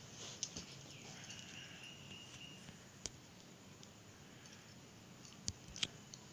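Faint handling sounds of beaded crochet work: a few sharp clicks of the lace's beads knocking together and against the crochet hook, the loudest two close together near the end. A faint thin high tone is heard for about a second and a half, starting about a second in.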